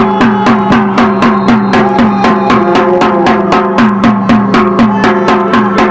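Music driven by drums: a steady beat of about four drum hits a second, each with a short drop in pitch, over held notes.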